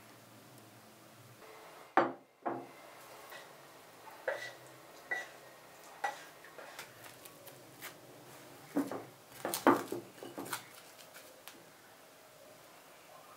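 Kitchen handling sounds of a saucepan, spatula and glass bowl: scattered sharp knocks and clinks as thick pastry cream is stirred and scraped out of the pan into the bowl. The loudest knock comes about two seconds in, and a quick run of knocks and clicks comes near the end.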